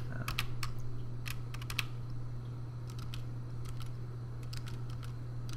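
Irregular clicks and taps of a computer keyboard, over a steady low hum.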